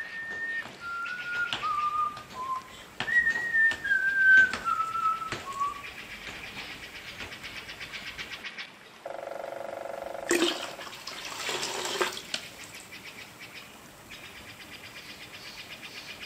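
Whistling: a short tune of four notes stepping down, then a second falling run of five notes. A fast, even clicking follows, then a low humming tone with a loud burst of noise about ten seconds in, and the clicking again near the end.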